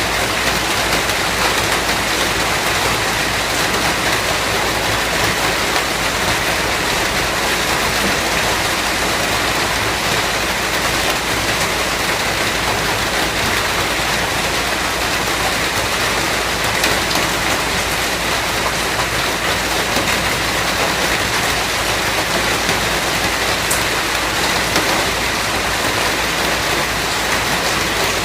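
Steady, heavy rain falling on surfaces: a dense, even patter.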